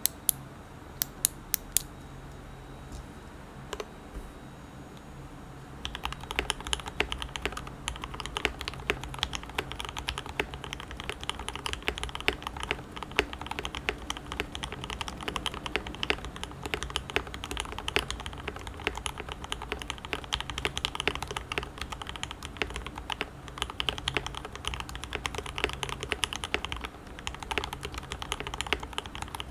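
Typing on a KBD75v2 custom mechanical keyboard with factory-lubed Tangerine v2 67g linear switches, a brass plate and GMK keycaps. A few separate clicks in the first seconds, then steady, fast typing from about six seconds in.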